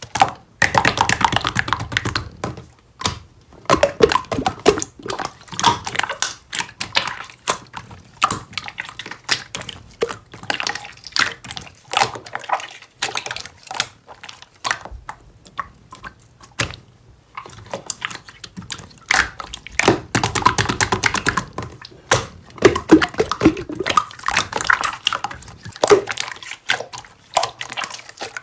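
Slime being squeezed and pressed by hand: a dense run of wet clicks, pops and squelches, with a few brief pauses.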